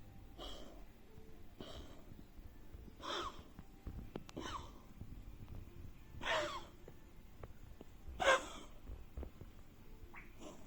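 Canadian Sphynx cat coughing and wheezing in a run of about seven short raspy bursts, roughly one every one to two seconds, the loudest about six and eight seconds in. This is a chronic cough that vets last diagnosed as feline bronchial asthma, and an inhaler has not stopped it.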